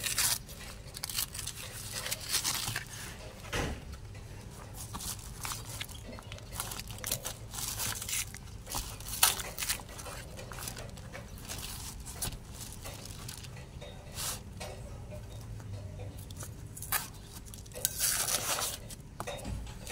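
Brown paper wrapping crinkling and tearing as it is pulled off a new shock absorber, in short irregular crackles with a longer rustle near the end.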